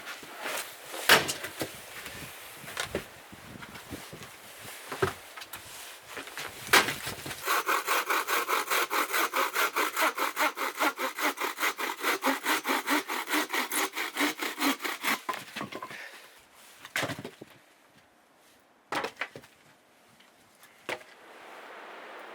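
Hand saw cutting through wood in quick, even back-and-forth strokes, about four or five a second, for roughly eight seconds. Scattered knocks of wood being handled come before the sawing and a few more come after it.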